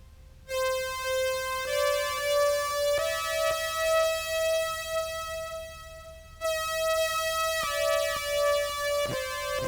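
Meris Enzo synth tone tracking a contrabass clarinet sample pitched up two octaves by an EHX POG2, playing a slow line of sustained notes that step up and back down, with a short break in the middle. Small clicks mark the note changes, where the synth picks up the tonguing.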